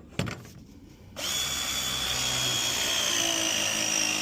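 Two short clicks, then a power tool's motor starts about a second in and runs at a steady speed with a high whine.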